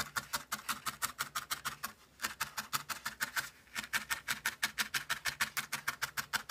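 A felting needle stabbing rapidly and evenly into wool on a foam pad, about eight pokes a second, with a short pause about two seconds in. The frayed edge of the wool vest piece is being folded back and felted down.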